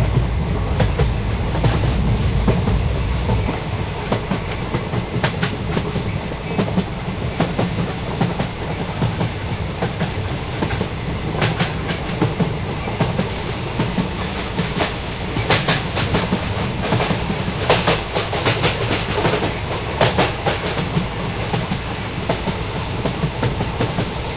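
Jan Shatabdi express train passing at speed: a steady rumble of wheels on rail with the clickety-clack of wheels over rail joints, the clicks coming thickest about two-thirds of the way through.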